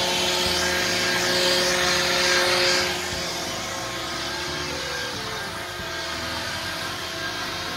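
Handheld leaf blower running steadily: a rush of air over a steady motor hum. It is a little louder for the first three seconds, then slightly quieter.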